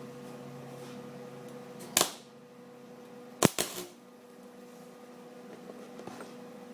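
Arc welder humming, with two brief arc strikes: a sharp crackle about two seconds in and a short run of crackles about a second and a half later. These are quick spot welds building up the center of a broken-off bolt in a cast-iron exhaust manifold.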